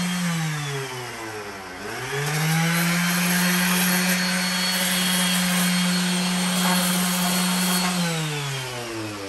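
Variable-speed electric sander with a 60-grit pad running against concrete. The motor hum winds down soon after the start and spins back up about two seconds in. It then holds steady with a gritty sanding hiss, and winds down again near the end.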